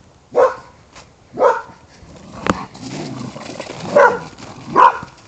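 A dog barking in play: four short barks, two in the first two seconds and two close together near the end, with a sharp click about halfway and rustling noise in between.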